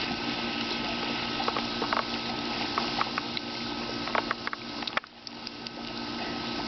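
Garden hose spraying and splashing water, a steady hissing spatter with a few short sharp splashes scattered through it. It briefly drops off about five seconds in, then picks up again.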